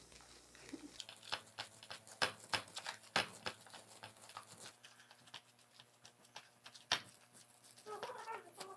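Fingers pressing and patting soft rice-flour dough flat on oiled sal leaves: faint, irregular little clicks and pats of wet dough and leaf under the hand.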